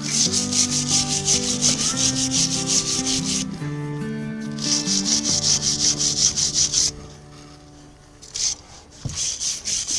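Hand wire brush scrubbed back and forth over a cast-iron vise body in rapid, even strokes, brushing off rust loosened by electrolysis. The brushing pauses briefly about three and a half seconds in and mostly stops after about seven seconds.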